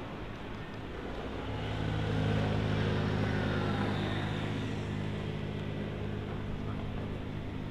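A passing engine, a steady low hum that swells about a second and a half in, peaks and then slowly fades, with a faint falling whine on top.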